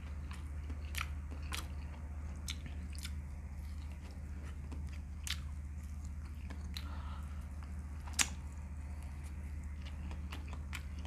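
A person chewing a hand-fed mouthful of chili chicken with rice close to the microphone: scattered sharp mouth clicks, the loudest about eight seconds in, over a steady low hum.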